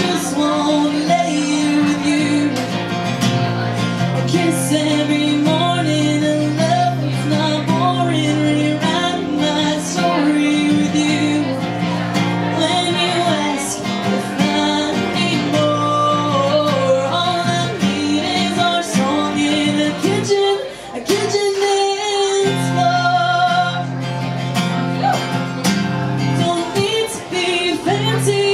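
Country song played live: a woman sings over guitar and band. The low end drops out for a second or two about two-thirds of the way through, then comes back.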